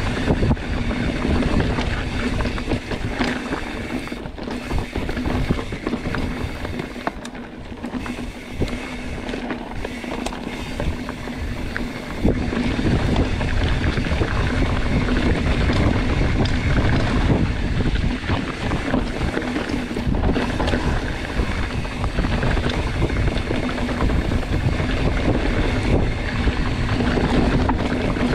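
Background music over wind buffeting the microphone and the rumble of a mountain bike riding a rocky trail, getting louder about twelve seconds in.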